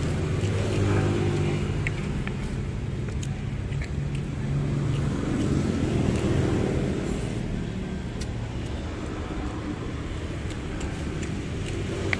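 Road traffic passing close by: engines swell as vehicles go by about a second in and again around six seconds.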